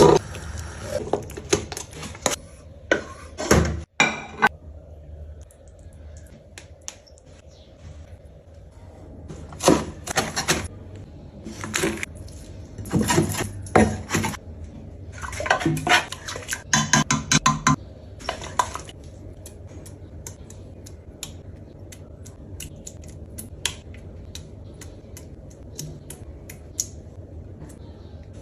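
Pots, pans and cutlery clattering: irregular clinks and knocks, busiest in the first eighteen seconds, then only sparse light ticks.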